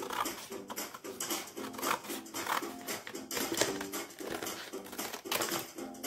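Scissors snipping through black craft paper, several crisp cuts. Soft background music of short plucked notes plays throughout.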